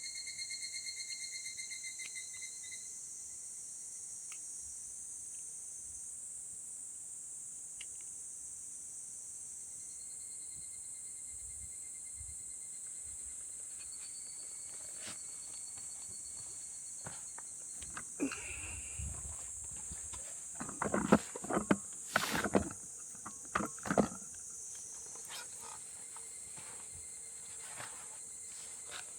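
Crickets and other night insects chirring steadily in a high band, with a pulsing trill at the start and again around the middle. Between about 18 and 24 seconds a short cluster of knocks and clatter stands out as the loudest sound.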